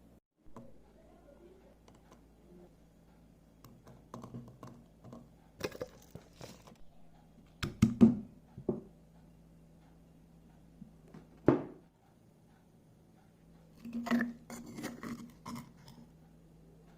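Kitchen preparation sounds: scattered knocks, scrapes and clatter of utensils and food handling, with two sharper knocks near the middle, over a faint steady hum.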